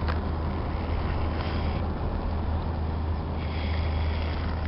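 Car in motion heard from inside the cabin: a steady low engine and road drone with a constant rumble of tyre noise.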